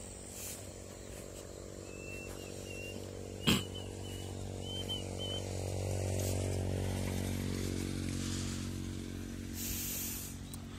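A small engine running steadily, growing louder toward the middle and then easing off, with a sharp click about three and a half seconds in and a few faint high chirps.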